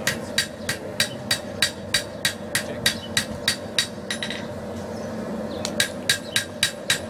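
Blacksmith's hand hammer striking hot steel on an anvil in a steady rhythm, about three ringing blows a second. The blows stop for about a second and a half a little past the middle, then resume. A steady hum runs underneath.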